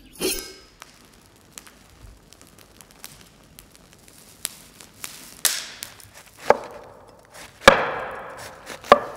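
Chopping with a blade on wood: a series of separate sharp chops roughly a second apart, the loudest ones near the end.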